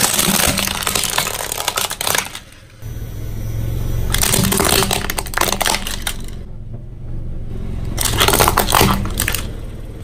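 Hard plastic toys cracking and crunching under a car tyre rolling over them, in three separate bouts of crackling, with a low rumble from the car underneath.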